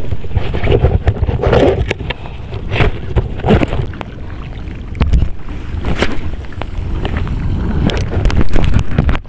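Wind buffeting the microphone in a low, uneven rumble, with irregular knocks and rubbing from hands handling a spinning reel and fishing rod close to it.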